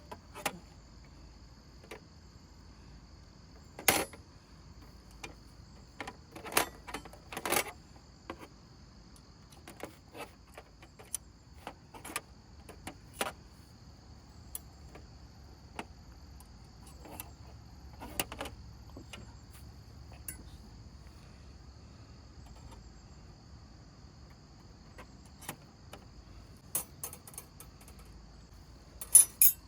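Crickets trilling steadily on one high pitch, with scattered sharp clicks and light knocks from camp gear being handled.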